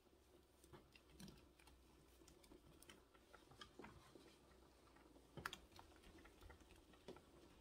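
Faint, scattered light taps and clicks of hands gathering cut tortilla pieces off a plastic cutting board and dropping them into the skillet, with one slightly louder tap about five and a half seconds in.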